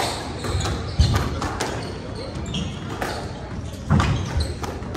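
Squash rally: the rubber ball cracking off rackets and thudding against the walls, several sharp hits with the loudest about a second in and near the end, echoing in the court, with short squeaks of court shoes on the hardwood floor.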